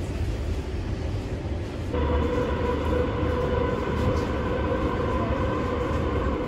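Metro train car: a low rumble, then from about two seconds in a louder, steady hum with a steady whine over it.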